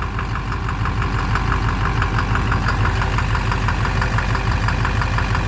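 Duramax LMM 6.6-litre V8 turbodiesel idling, heard close to the oil pan, with a rapid, even knock over the engine's low running sound. The owner takes the knock to come from the bottom end, though oil analysis shows no abnormal wear.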